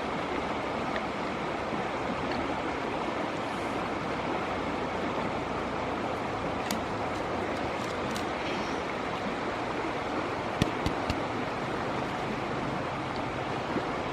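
River water flowing in a steady rushing wash. A few sharp clicks cut through it about seven seconds in and again around eleven seconds.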